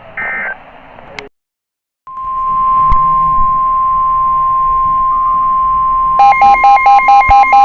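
NOAA Weather Radio alert signals: a short burst of SAME digital data tones cuts off into about a second of silence. Then the steady 1050 Hz warning alarm tone sounds. About four seconds later a pulsing electronic beep alarm joins it, at about four beeps a second.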